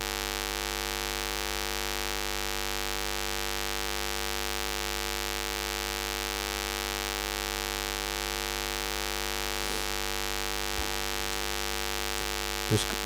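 Steady electrical hum: a constant buzz made of several fixed tones over a faint hiss, with a short brief sound near the end.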